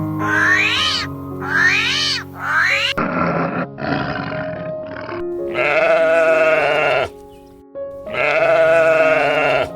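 Animal calls over background music: after a cut, a few short calls, then two long calls of about a second and a half each.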